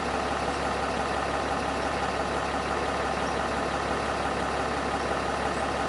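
Cummins 6.7 L inline-six turbo diesel of a 2010 Ram 2500 idling steadily, heard from inside the cab.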